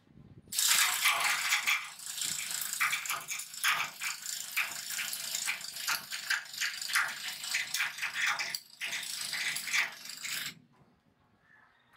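Cordless drill driving a homemade winch built from a bicycle sprocket, chain and hub, a steady rattling clatter as it winds in the cable and lifts a heavy tree stump. It stops about ten and a half seconds in.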